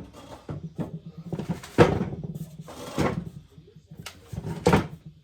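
A run of knocks, bumps and scrapes as things are handled and shifted around by hand, with the loudest bangs about two seconds in, at three seconds and near the end.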